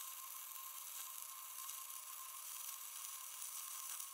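Faint, steady high-pitched hiss of a stick-welding (MMA) arc from a HITBOX SYN-MIG200PRO inverter welder running a continuous bead with a 3.2 mm electrode.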